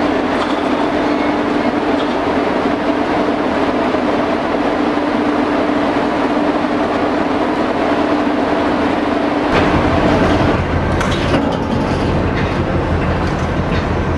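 Steady mechanical running noise with a held hum, the sound of rolling machinery. A deeper low rumble joins about nine and a half seconds in.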